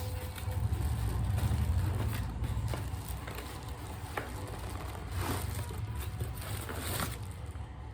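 Packaging and a cordless phone being handled during unboxing: scattered light crinkles and small knocks over a steady low rumble.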